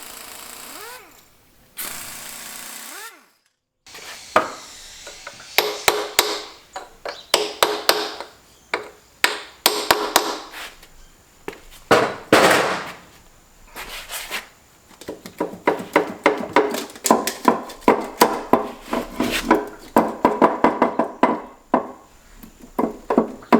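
Metal tools and engine parts being knocked and tapped during a small-block V8 teardown: many sharp clanks and hammer-like taps, some leaving a short metallic ring. The clanks follow a steady hiss of a few seconds and a brief silence.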